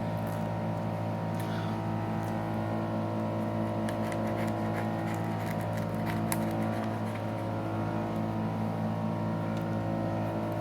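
A small motor runs with a steady, even hum throughout, and faint light clicks and ticks are scattered over it.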